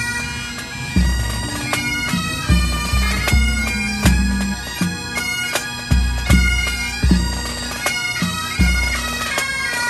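A Highland pipe band playing: bagpipes sound a steady drone under a changing melody, with a bass drum beating steadily about every three-quarters of a second.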